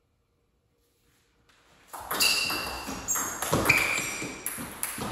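Near silence, then about two seconds in a table tennis rally starts: the ping-pong ball clicks sharply off the bats and the table, two to three hits a second, some with a short ringing ping.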